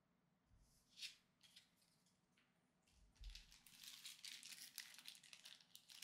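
Faint rustling and crinkling of Pokémon trading cards being handled: a brief rustle about a second in, then denser crinkling from about three seconds in.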